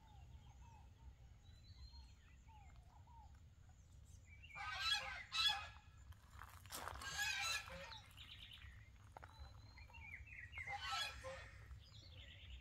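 Farmyard poultry calling: a pair of harsh calls about four and a half seconds in, another about seven seconds in and one near eleven seconds. Faint small bird chirps come in between.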